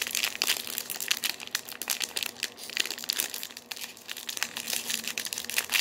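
Plastic fruit snack pouch crinkling and crackling as it is handled in the hands, with irregular rustles throughout.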